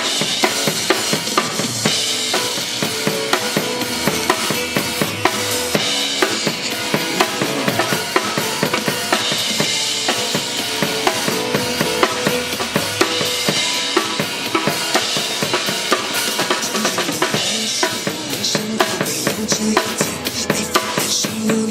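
Live band music driven by a drum kit, the bass drum and snare keeping a steady beat under other pitched instruments.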